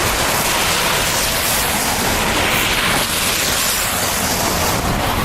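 Steady rushing noise of wind blowing across the phone's microphone, with an unsteady low rumble underneath.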